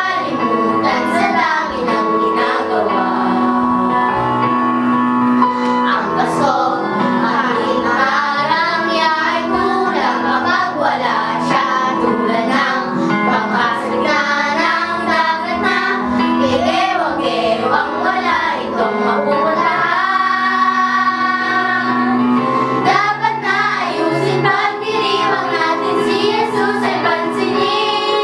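Children's group singing a Tagalog Christian Christmas song together over backing music.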